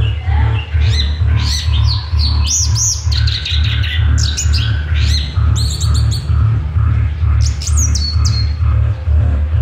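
Orange-headed thrush singing a fast, varied song of rising and falling whistled phrases, in the full-song state that keepers call 'teler'. A loud steady low rumble runs beneath it.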